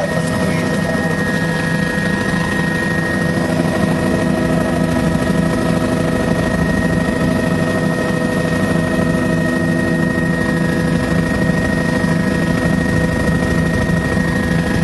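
Helicopter in flight heard from inside the cabin: the turbine engine's steady high whine over the low, even drone of the rotor.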